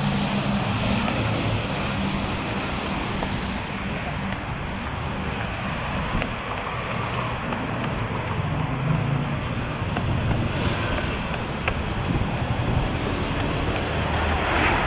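Steady road traffic noise, with the low hum of vehicle engines passing near the start and again about eight to nine seconds in.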